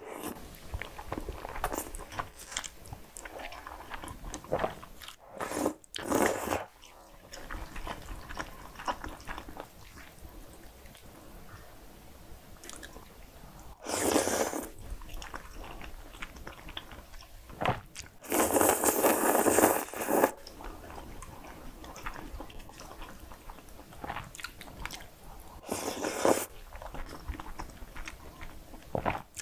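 Close-miked eating sounds: chewing cream-sauced pasta noodles with soft wet mouth noises, and several loud slurps of noodles lasting a second or two each, the longest about two-thirds of the way through.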